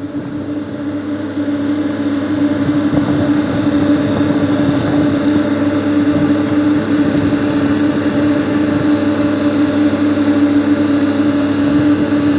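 An engine running steadily with a strong, constant hum, growing louder over the first couple of seconds and then holding level.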